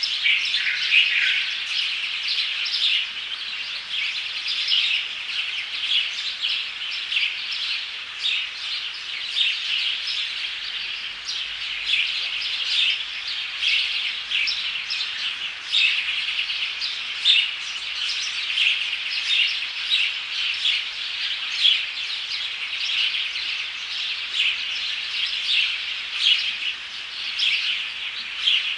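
A chorus of many small birds chirping continuously, with short overlapping calls packed densely throughout.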